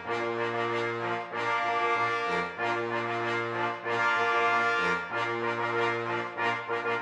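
Background music led by brass instruments, with sustained chords over a low bass line that changes note about once a second.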